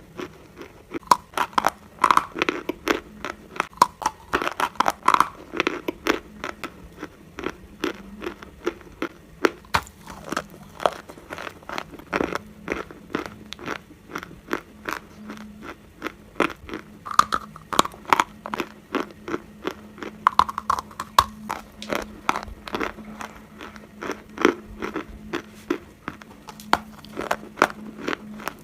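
Close-miked biting and chewing of dry Turkestan edible clay: a dense run of sharp, crisp crunches.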